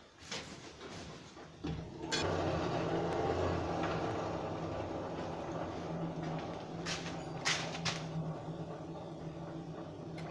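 A gas torch is lit about two seconds in with a sharp pop and then burns with a steady rushing noise and low hum, heating the steel rod of the knot so it can be squeezed tighter. A couple of sharp metal clicks sound near the middle.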